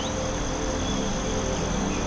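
Forest ambience: a steady high-pitched insect drone with a short rising bird chirp at the start, over low held tones of ambient music.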